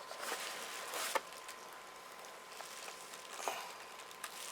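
Faint handling noise of a boxed vinyl figure's cardboard and plastic packaging: a few light taps and rustles, the sharpest about a second in. A faint steady high tone runs underneath.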